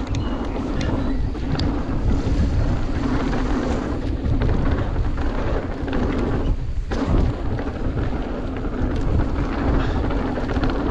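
Wind buffeting the microphone as a mountain bike rolls quickly down a dirt trail, with a steady low rumble from the tyres and a few small knocks and rattles from the bike.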